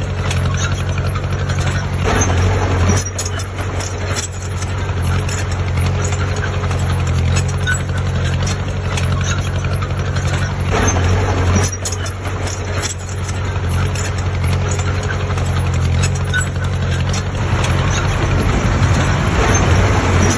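Heavy construction machine's diesel engine running steadily, with scattered knocks over it.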